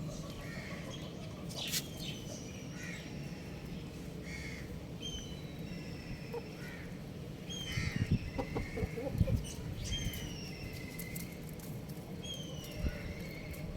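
Young rooster chirping: short, high calls that fall in pitch, repeated every two to three seconds. A few low knocks sound about eight to nine seconds in, over a steady low background rumble.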